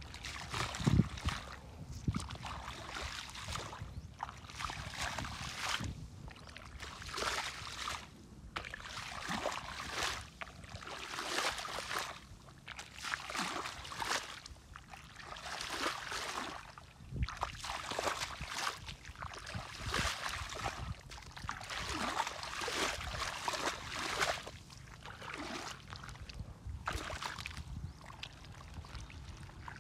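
Shallow muddy water splashing and sloshing as bare feet wade through it and a woven basket trap is plunged down into it, a new splash every second or two.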